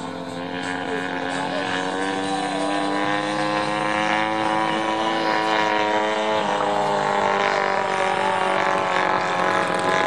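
Large-scale RC biplane (Mamba 120 with a GP-123 engine) in flight, its engine and propeller making a steady drone. The pitch climbs slowly over the first several seconds and eases down again after about six seconds, and the sound grows a little louder.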